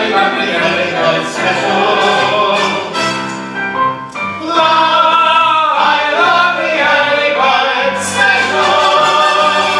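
Several voices singing together over instrumental accompaniment, with sustained bass notes that change in steps beneath the wavering vocal lines.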